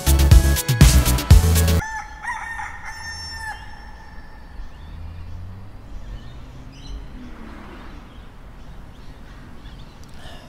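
Loud dance music cuts off abruptly, and a rooster crows once for under two seconds. A quiet background with a few faint high chirps follows.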